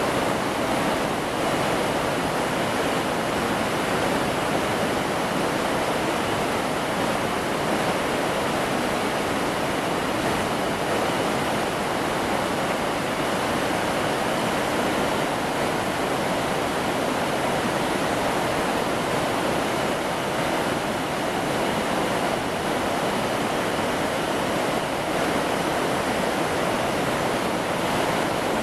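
Mountain stream's water rushing steadily over rocks, an even, unbroken noise that holds the same level throughout.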